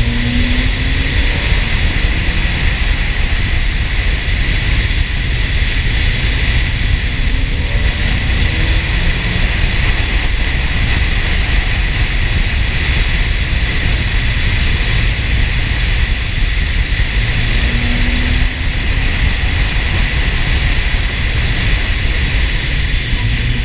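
Steady road and wind noise from a Porsche 968 at speed, a constant heavy rumble. The car's four-cylinder engine is heard only faintly, rising briefly in pitch near the start and again about three-quarters of the way through.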